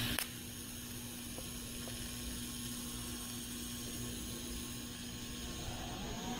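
TIG welding arc running with a steady hiss as a -12 AN fitting is welded onto a metal fuel tank. It opens with a short, louder burst as the arc starts.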